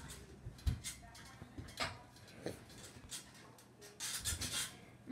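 Handling noise from a phone camera: scattered rustles and light taps at irregular times, busiest around four seconds in, over a faint steady hum.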